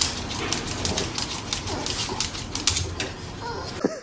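Rapid, irregular clicking and tapping, followed near the end by a short, bending animal call.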